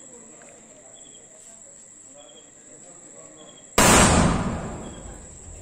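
Crickets chirping steadily, then about four seconds in a firework goes off from the ground with a sudden loud blast that fades away over a second or two.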